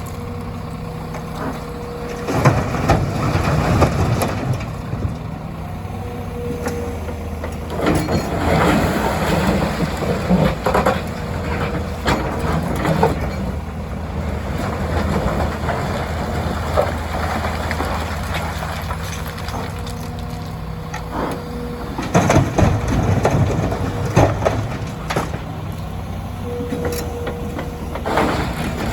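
Diesel engines of a Hyundai 300LC excavator and a dump truck running steadily while aggregate is loaded. Loud spells of rock crashing and rattling come about two, eight and twenty-two seconds in, each lasting a few seconds, as bucket loads are dropped into the truck bed.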